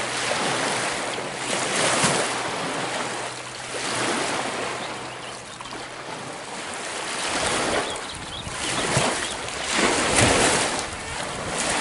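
Small lake waves washing and lapping onto a shallow beach, swelling and falling away every couple of seconds, with wind on the microphone.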